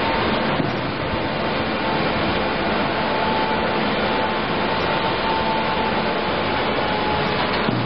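Semi-automatic corrugated-box folder gluer running steadily, its belts and rollers making a continuous mechanical noise with a faint steady whine.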